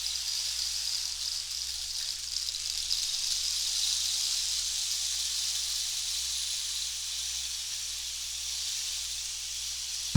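Rain stick: small pebbles trickling down through the tube in a continuous soft, rain-like hiss that swells a little and eases again.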